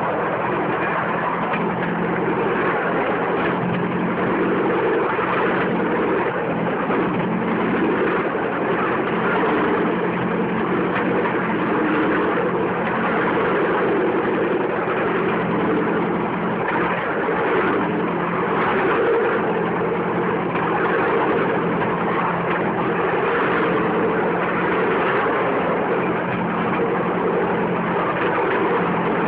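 Bamboo train (norry) running steadily along the rails: its small engine drones at a constant pitch under the noise of the car moving over the track.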